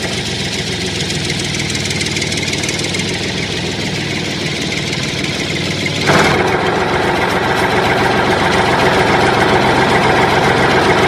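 Engine sound effect idling steadily, laid over toy vehicles that have no engines. About six seconds in it turns suddenly louder and brighter, as another engine sound takes over.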